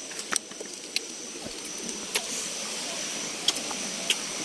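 Steady forest background noise with a thin, high, even tone through it, broken by five or six short, sharp clicks.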